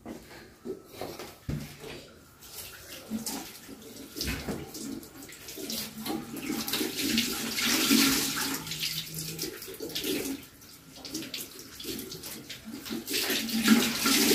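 Tap water running into a bathroom sink while something is washed by hand under it, the splashing swelling about halfway through and again near the end. A couple of low knocks sound in the first few seconds.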